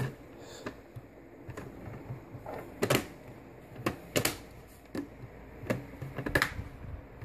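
Plastic screen bezel of a Lenovo ThinkPad T430 laptop being pressed into place, its clips snapping in with a series of sharp, irregular clicks.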